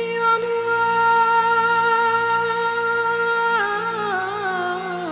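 Background music: a slow, meditative melody holds one long note over a steady low drone. About three and a half seconds in, the melody slides down in pitch with a wavering vibrato.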